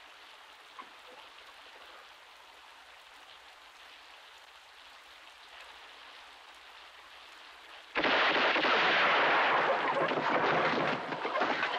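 Rain hissing faintly, then about eight seconds in a sudden loud rush of heavy downpour that lasts about three seconds before easing.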